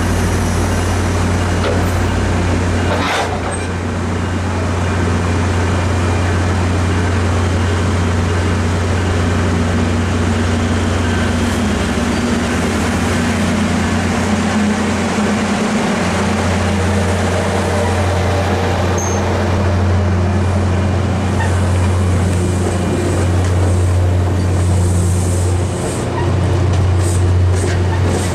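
MBTA commuter rail train's passenger coaches rolling past close by: a loud, steady rumble of wheels on the rails over a steady low hum, with a few light clicks near the end.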